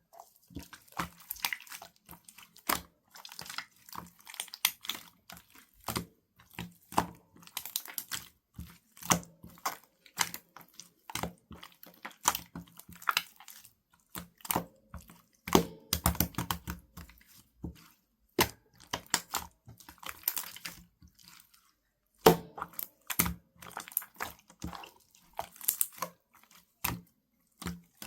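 Runny, egg-white-like slime being squished, pressed and stretched by hand, making irregular wet clicks and pops.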